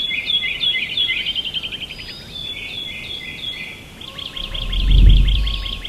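Songbirds singing in quick, repeated chirping phrases and trills. About four seconds in, a low whoosh swells, peaks and fades; it is the loudest sound.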